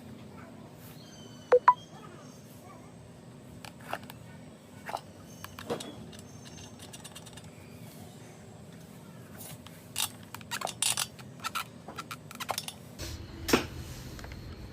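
Scattered small clicks and clinks with a low hum beneath. Two sharp clicks come about one and a half seconds in, and a quick cluster of clicks and knocks near the end.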